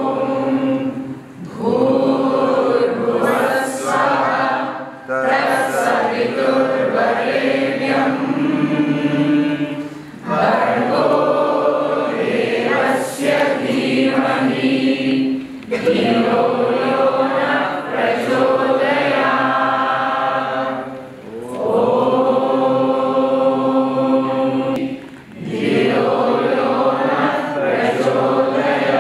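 A group of voices singing a devotional chant together in long sung phrases, with short breaks between phrases every few seconds.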